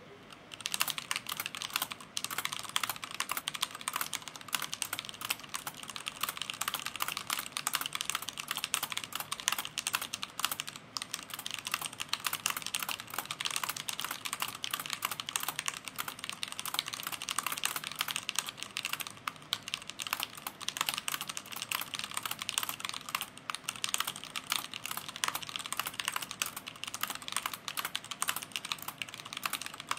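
Fast typing on a Leopold FC750R mechanical keyboard: a rapid, unbroken clatter of keystrokes at typing-test speed, starting about half a second in.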